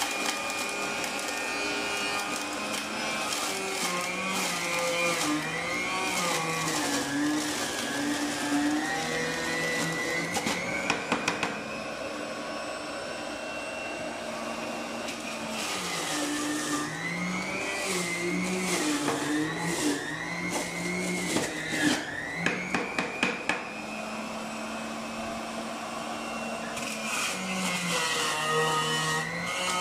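Electric juicer motor running as bitter melon is pushed into its spinning cutter, its whine dipping and recovering in pitch under the load. Crunching cracks come in clusters about ten seconds in and again around twenty-two seconds in, as the melon is shredded.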